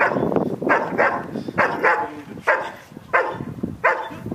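Black shepherd dog barking steadily at a helper in a hiding blind, about seven sharp barks at roughly two a second: the bark-and-hold of protection training, where the dog guards the helper by barking without biting.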